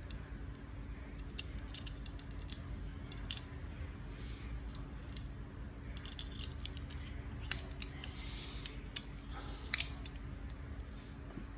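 Detachable Rino kitchen shears being put back together: scattered small metallic clicks and clinks as the two steel blades are fitted and the small pivot screw is turned in. A few sharper clicks come in the second half.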